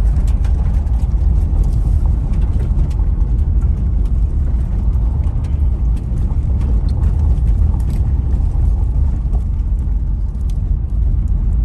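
Mountain stream water rushing steadily over rocks, a constant low rushing noise, with scattered faint clicks.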